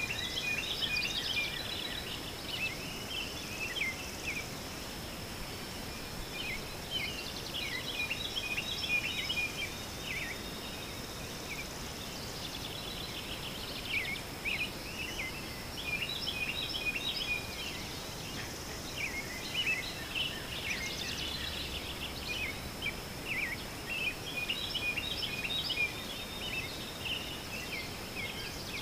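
Birds chirping in clusters of quick calls, over a steady, high-pitched insect buzz.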